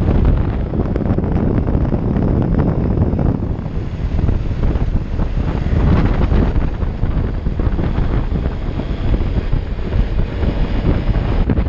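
Loud wind noise buffeting the microphone while riding a Honda Innova 125 motorcycle, with its small single-cylinder engine running underneath the buffeting.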